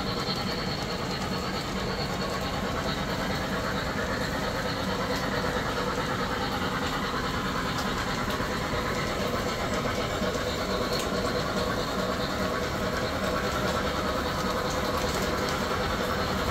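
MTH 1-gauge model of the Southern Pacific GS-4 steam locomotive #4449 running on its track: a steady running noise with faint scattered clicks.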